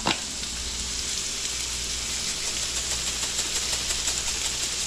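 Pompano chunks frying in butter in a skillet, a steady crackling sizzle, with a single short click at the start.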